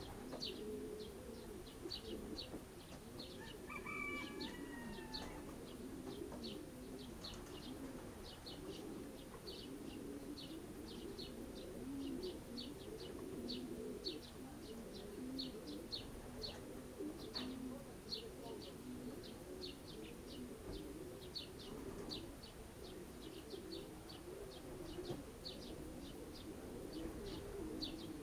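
Racing pigeons cooing continuously in the loft, a low rolling murmur, with another bird giving short high chirps about twice a second throughout.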